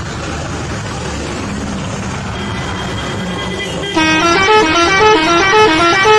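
Bus engine and road noise, then about four seconds in a bus's musical horn starts suddenly and plays a quick tune stepping back and forth between a few notes, louder than the engine.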